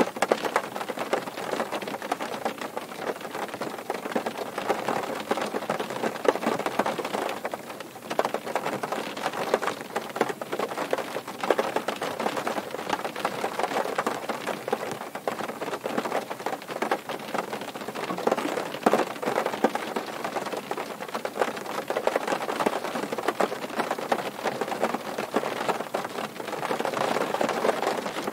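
Steady rain falling on a car, heard from inside the cabin: a dense, even patter of many individual drops on the roof and windshield.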